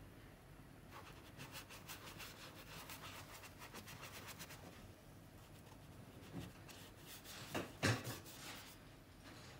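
Faint strokes of a paintbrush brushing and scratching across watercolour paper, a run of quick strokes in the first half, with one louder knock about eight seconds in.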